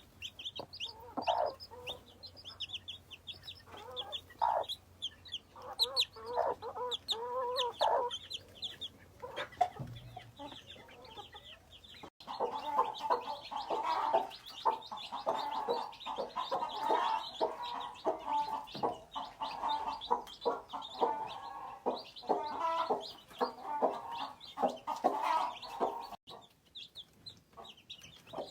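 Hens clucking while their chicks peep, many short high peeps over lower clucks. About twelve seconds in, the sound changes abruptly to a denser run of rapid clucking with peeps continuing.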